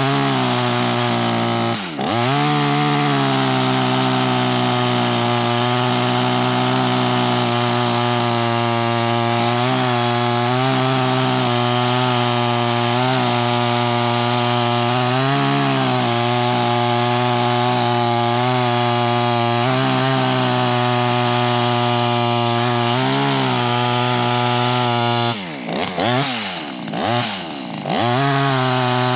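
Small clone chainsaw running at high revs, cutting into a tree, its pitch sagging briefly each time it loads in the cut. Near the end it drops off and revs back up a few times before going back to full throttle.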